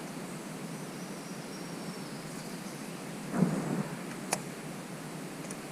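Steady rushing outdoor background noise, with a brief low sound about halfway through and a single sharp click a second later.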